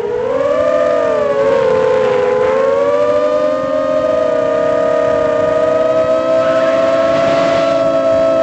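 Storm Loki X4 mini quadcopter's motors and propellers whining in flight, heard from its onboard camera. Several close pitches sound together; they dip briefly near the start, then hold fairly steady and rise slightly.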